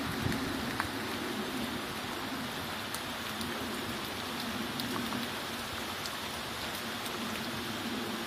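Steady rain falling, with scattered drops ticking, over a low steady rumble like a distant airplane engine: the unexplained hum in the sky that went on for days.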